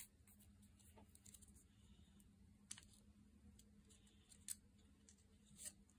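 Near silence with a few faint, scattered clicks and rustles as small supplies are handled: a test-strip vial is set down and an alcohol prep pad packet is torn open.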